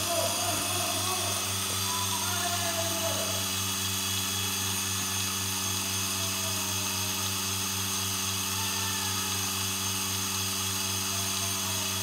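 Steady hum of an electric machine with a fast, even throb. A few faint calls or voices are heard in the first three seconds.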